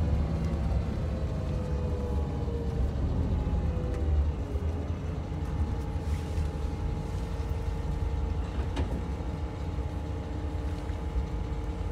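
Coach's diesel engine and road rumble heard from inside the passenger cabin while it drives. The engine pitch falls over the first four seconds or so, then holds steady.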